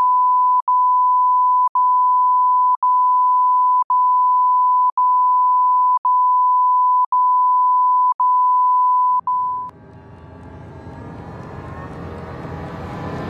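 A steady, high electronic beep tone, cut by a brief click-like break about once a second. It stops about ten seconds in, and a low, rising swell of sound leads into music.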